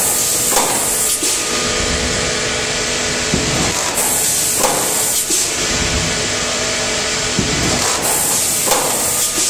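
PP plastic thermoforming machine running, a steady hum and hiss of motors and air. Its cycle repeats about every four seconds, each time with a short burst of hissing air, and knocks fall between the bursts.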